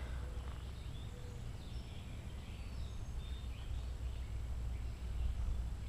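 Faint, scattered bird calls, a few short whistled notes, over a steady low outdoor rumble.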